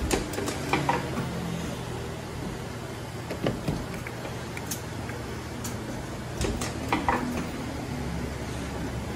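Claw machine in operation: a steady machine hum with scattered clicks and knocks as the metal claw moves and knocks against the boxed prizes.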